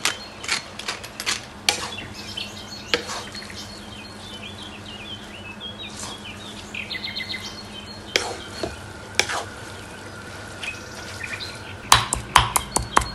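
Kitchen utensils clinking, scraping and knocking against cookware, with a quick run of clinks near the end. Birds chirp in the background during the middle.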